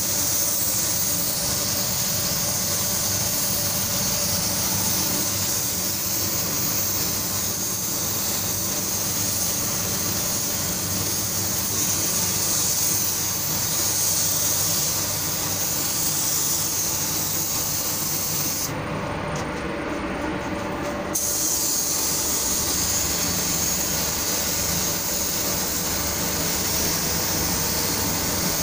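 Gravity-feed paint spray gun hissing steadily as compressed air sprays white paint, over a steady low hum. The hiss stops for about two seconds past the middle, then starts again.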